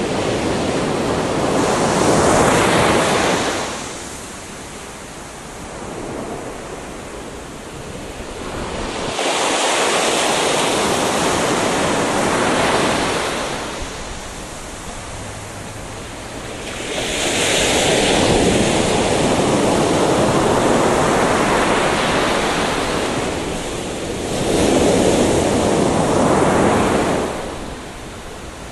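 Gentle sea waves breaking and washing up a beach, swelling and falling back about four times, each surge lasting several seconds.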